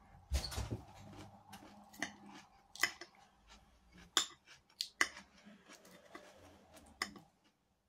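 Metal fork tapping and scraping against a plate as food is picked up, a series of sharp separate clicks and clinks.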